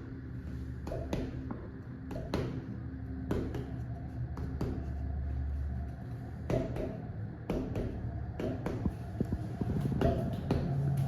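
Massage handling sounds: scattered sharp clicks and taps at an irregular pace over a low steady hum.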